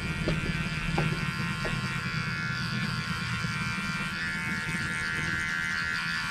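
Cheap electric dog grooming clipper buzzing steadily as it is run over a shaved scalp.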